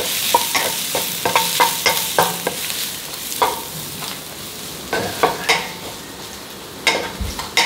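Minced garlic sizzling in hot oil in a frying pan while it is stir-fried, with irregular scrapes and taps of the spatula against the pan.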